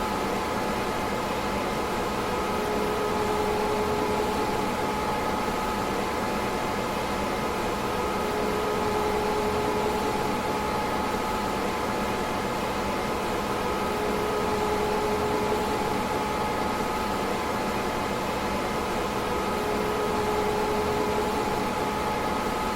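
DEC PDP-11/44 minicomputer running: a steady whir of cooling fans with a constant hum, and a lower tone that swells and fades every five or six seconds.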